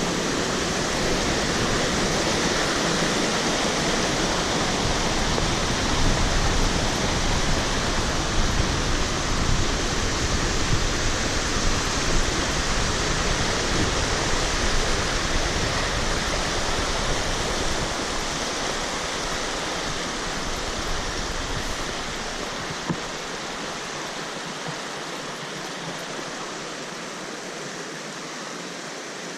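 Rushing water, a steady even hiss like a waterfall or fast stream, growing fainter in the last third.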